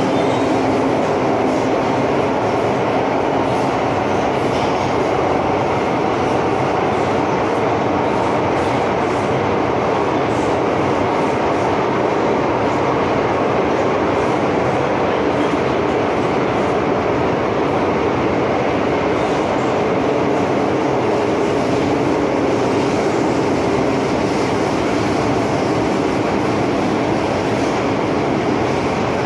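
MTR Island Line M-Train electric metro car running between stations, heard from on board: a steady, even rumble of wheels on rail with a faint hum, holding the same level throughout.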